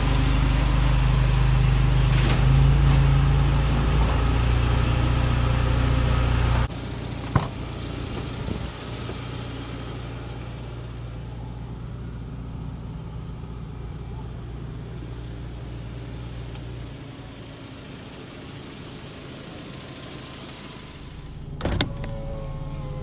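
2013 Mazda Bongo truck's engine idling steadily, loud from beneath the truck. It drops suddenly to a quieter idle about a third of the way in, with a single click soon after. Near the end the electric power-window motor starts with a short whir.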